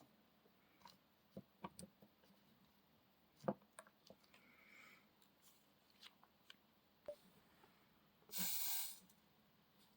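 Scattered light clicks and taps of small parts being handled, with a short rasping hiss lasting under a second near the end.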